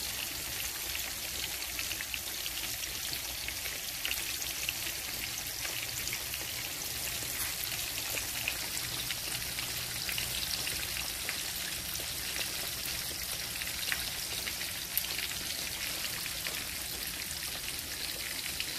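Cornmeal-coated catfish fillets frying in hot canola oil in a skillet: a steady sizzle thick with fine crackling pops.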